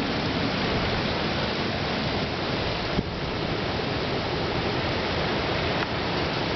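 Wind storm: a steady, loud rushing of strong wind.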